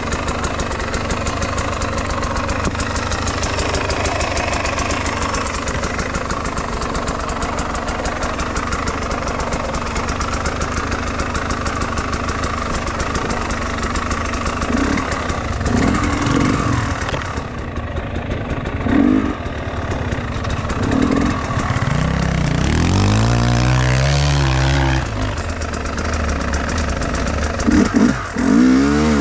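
Enduro motorcycle engine running steadily, then revving up and down several times in the second half.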